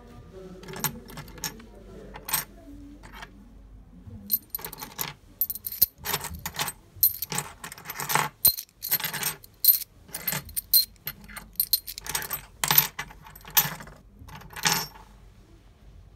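Metal key blanks, many with plastic heads, clinking and jangling as they are pushed around and picked through by hand on a wooden table top. A few scattered clinks come first, then a busy run of clinks from about four seconds in that stops near the end.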